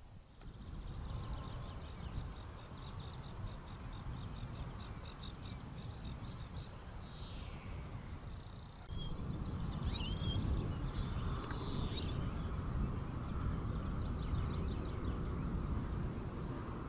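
Small songbirds singing outdoors: a long rapid high trill, then a falling note, scattered chirps and whistles, and a shorter trill near the end, over a steady low outdoor rumble that steps up abruptly about halfway through.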